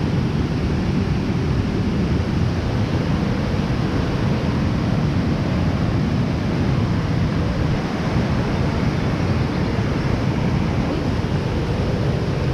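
Steady rush of fast, churning water, mixed with wind buffeting the microphone.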